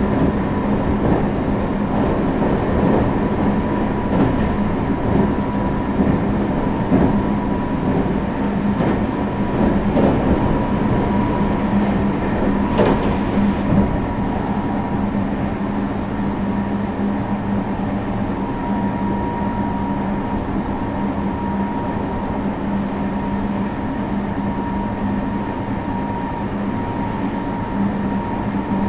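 Meitetsu 3500 series IGBT-VVVF electric train heard from inside the car, running at a steady speed. A steady whine sits over the rumble of the wheels on the rail, with sharp rail clicks through the first half that thin out after that.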